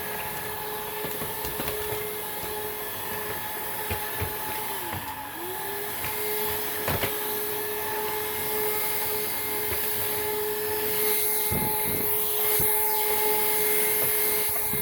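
Hoover React cordless stick vacuum running with a steady motor whine and airflow hiss. About five seconds in, the pitch sags briefly and comes back up, and a few short knocks sound later on.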